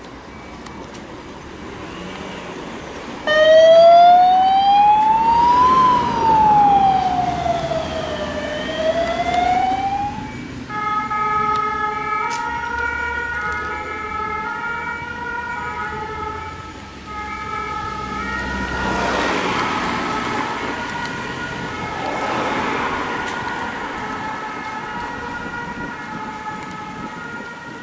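Emergency vehicle sirens. A loud wail starts a few seconds in and slowly rises and falls, then gives way to a siren stepping back and forth between tones. Road noise from passing vehicles swells twice about two thirds of the way through.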